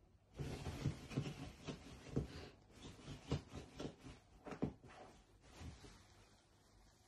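Soft fabric rustling and scuffing, a run of short scrapes about every half second, as a cat paws and burrows into soft bedding. The scrapes fade out near the end.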